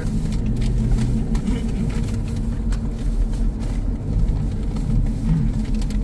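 Engine and road noise heard from inside a moving car, a steady low rumble with scattered light clicks.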